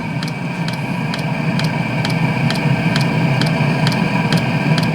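Chinese diesel heater firing and running on a blend of about one-third diesel and two-thirds 10W-30 engine oil: a steady low combustion rumble that slowly grows louder, with the fan whining and the fuel dosing pump ticking about three times a second.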